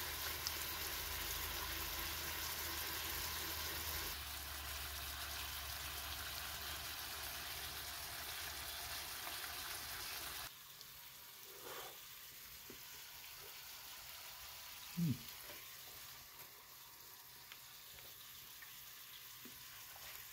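Yellow jack fillets frying in oil in a pan on an electric coil stove: a steady, weak sizzle, because the stovetop at max heat isn't getting the pan hot enough. The sizzle drops to a fainter hiss about ten seconds in, with a brief low sound about fifteen seconds in.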